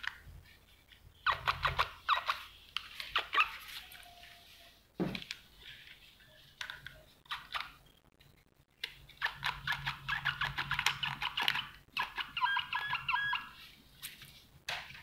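Clicks, taps and rattles of hard plastic cordless power tools being picked up and handled, with busier clusters of rattling near the start and again later on.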